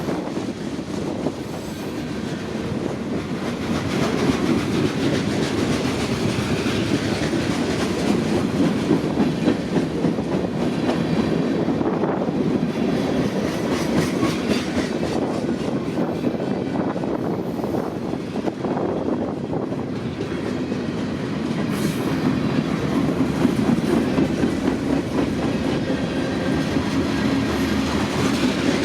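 CN freight train M399's cars rolling past, steel wheels clicking and clattering over the rail joints.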